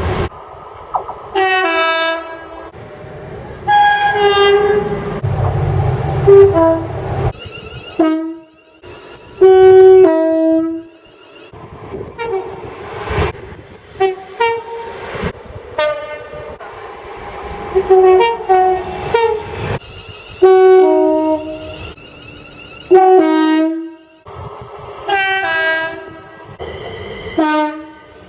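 Train horns of several different trains sounding one after another, mostly short blasts that step between two or three notes, with abrupt cuts from one clip to the next. A train's low running rumble sits under one of the blasts.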